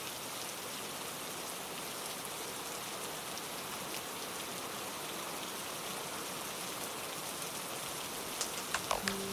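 Steady rain falling, an even hiss of many drops. Near the end a few louder, sharper drops land close by.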